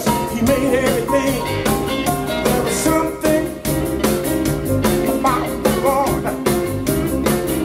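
Soul-blues song with a male singer over a band and a steady drum beat, played from a vinyl record on a Clearaudio Concept turntable through Larsen loudspeakers.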